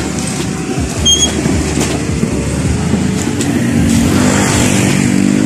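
A motor vehicle engine running steadily under the knocks and rustle of mango sacks being loaded into a van, with a short high chirp about a second in.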